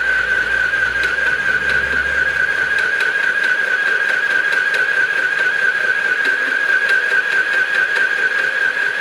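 Mini electric sewing machine running continuously while stitching a scrap of cloth: a steady high-pitched motor whine with light, regular ticking from the needle mechanism.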